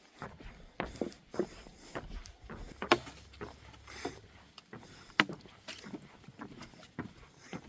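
A hiker's footsteps on a trail during a climb: irregular steps at roughly one a second, the loudest about three seconds in.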